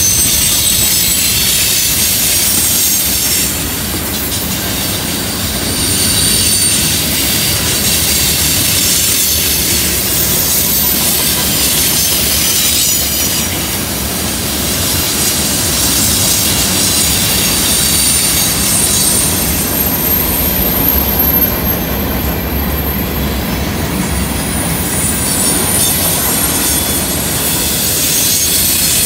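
Freight cars rolling past on a curve: steel wheels rumbling steadily on the rails, with high-pitched wheel flange squeal that comes and goes.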